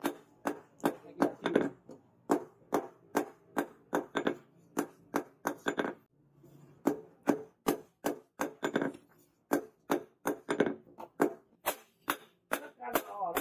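Hand hammer blows on hot leaf-spring steel resting on a steel post anvil while the billhook blade is forged to shape. A steady series of sharp, ringing strikes, about two to three a second, with a brief pause about six seconds in.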